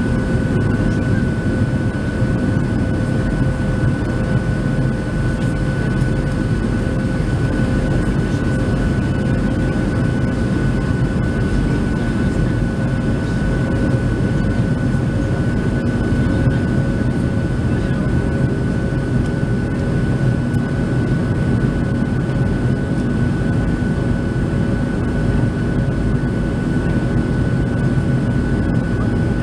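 Boeing 737-700 airliner in flight, heard inside the cabin: the even drone of its CFM56-7B turbofan engines and the rush of air over the fuselage, with a steady high whine.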